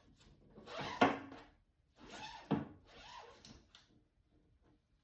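Handling noise from fridge parts being cleaned: rubbing and scraping, with two sharp knocks about one and two and a half seconds in.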